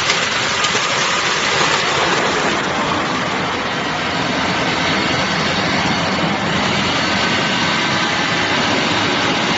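ZC 100 automatic coconut grating machine running under load, grinding coconut meat with a loud, steady mechanical noise.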